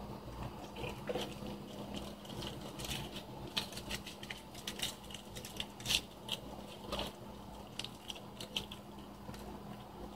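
Fast chewing of Milky Way bars: a string of irregular mouth clicks, the loudest about six seconds in, over a steady low hum.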